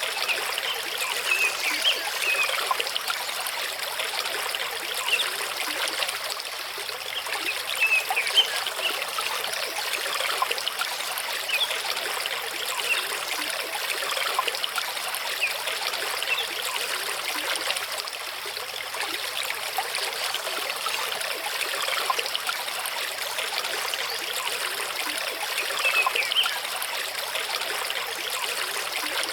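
Mountain stream running over rocks: a steady, even rush of flowing water.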